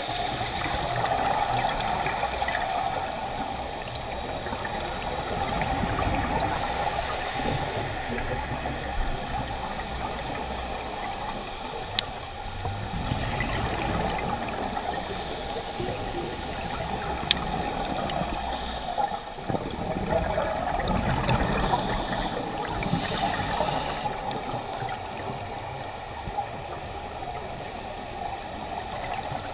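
A scuba diver's regulator breathing underwater: exhaled bubble bursts that swell and fade every several seconds with each breath. Two single sharp clicks stand out near the middle.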